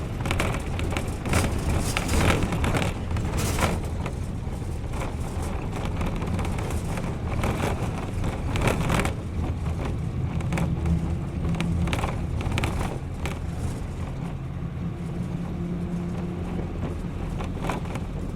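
Public service vehicle on the move, heard from inside the cabin: steady engine and road rumble, with rattles and knocks over the first few seconds.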